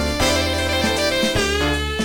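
Samsung SGH-D500 polyphonic ringtone playing as synthesized music: a jazzy tune over a held bass note, with a melody note that bends in pitch about one and a half seconds in.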